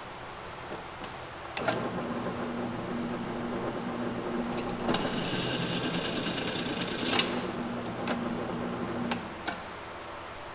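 Benchtop drill press starts with a click about a second and a half in and runs with a steady motor hum. From about five to seven seconds in, the bit cuts into the steel angle with a higher hissing cutting sound. The motor stops with clicks near the end.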